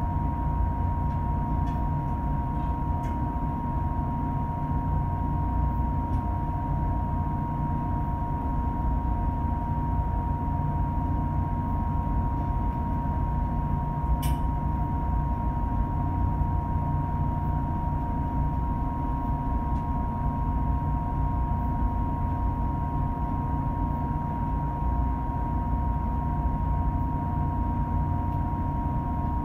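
Boat engine running steadily: a low drone with a steady whine over it and a single click about halfway through.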